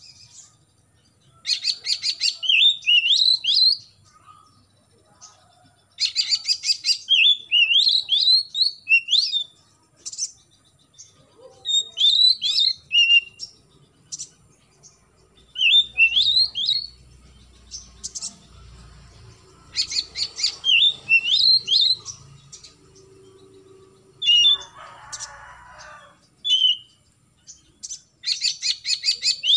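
Oriental magpie-robin singing: phrases repeated every few seconds, each opening with a fast rattling chatter and running into short, sliding whistled notes.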